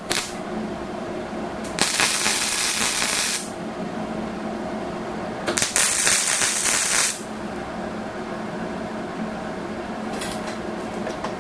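Welder tack-welding steel tubing: two tack welds of about a second and a half each, each a hissing crackle of the arc, and a short third one near the end, over a steady low hum.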